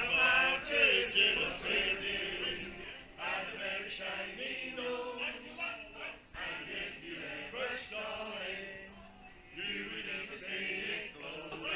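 A group of men singing a Christmas carol together, with a short break about nine seconds in before the singing picks up again.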